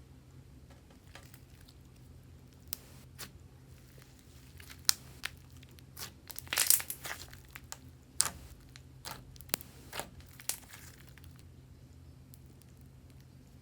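Hands squeezing and poking butter slime, giving scattered small pops and crackles, with a denser run of crackling about halfway through.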